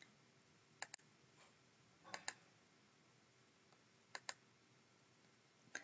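Computer mouse button clicking: short sharp clicks, mostly in quick pairs, a few times about a second and a half apart, with near silence between.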